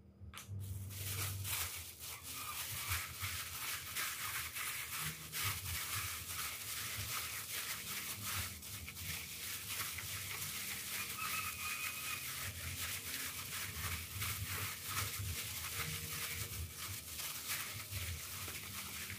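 A plastic bag worn over a hand crinkles and rustles steadily as it squeezes and kneads a moist dough of grated cassava and palm sugar in an enamel bowl.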